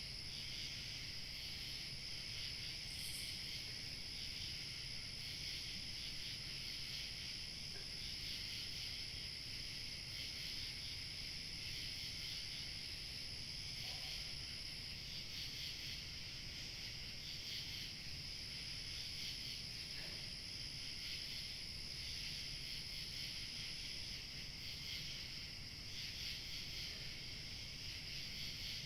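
A steady outdoor chorus of crickets chirping, with a thin, very high steady insect tone that stops about halfway through and returns for a few seconds later on. A low rumble of light wind lies underneath.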